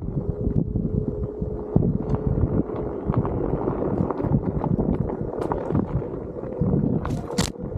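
Onewheel GT S-Series electric hub motor whining steadily as it climbs a dirt trail, its pitch dipping a little and rising again near the end, over a low rumble with scattered knocks from bumps in the trail. Two short, sharp noises come near the end.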